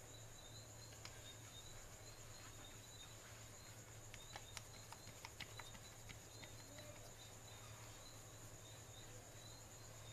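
Near silence: room tone with a faint steady low hum, a faint high steady whine and a faint high chirp repeating about twice a second, with a few soft clicks around the middle.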